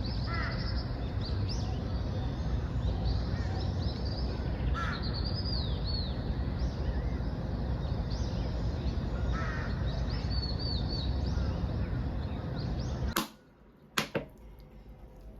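Birds calling repeatedly, in short chirps and a few harsher calls, over a steady background rush of outdoor noise. About 13 seconds in, this cuts off abruptly to a quiet room, with two sharp clicks.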